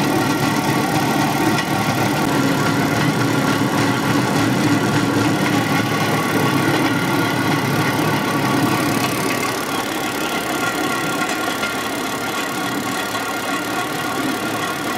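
Small petrol engine of a motorized rail cart running steadily as its steel wheels roll along the rails. The low part of the sound eases about ten seconds in and the whole gets slightly quieter.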